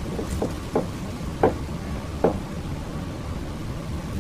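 A few short, soft knocks or clicks in the first couple of seconds over a steady background hiss.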